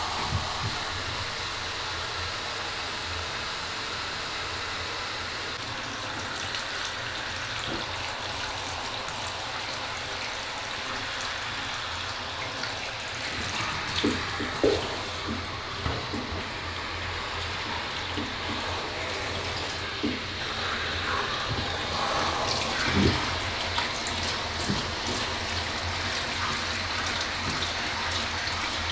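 Handheld shower running steadily as water is sprayed over a cat's coat to wet it before shampooing, with a few light knocks in the middle.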